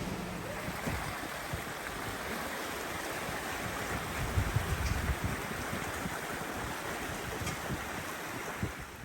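Water rushing and splashing past a sailing catamaran's hulls, with wind buffeting the microphone in low gusty rumbles, strongest about halfway through.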